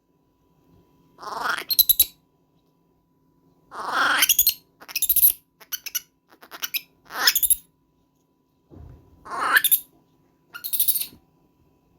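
Baby monkey screaming: a series of short, shrill calls that rise in pitch, about seven of them separated by brief pauses.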